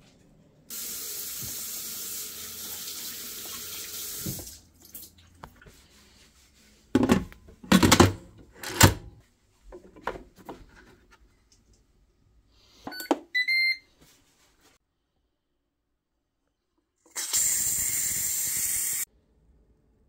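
Kitchen sounds around an electric pressure cooker. First a few seconds of liquid pouring into the pot, then several clunks of the lid going on. A short run of electronic beeps from the control panel follows. Near the end comes a loud two-second rush of hiss that cuts off sharply: steam blowing from the pressure release valve.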